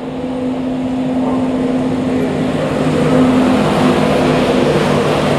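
Class 91 electric locomotive arriving at the platform and passing close by: a steady electric hum with several held tones over the rumble of the train, growing louder as it nears.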